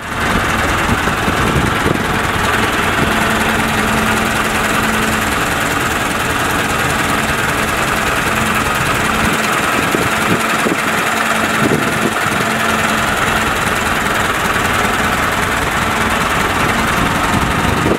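Ford Model A four-cylinder flathead engine idling steadily at an even level, heard close up at the open engine bay.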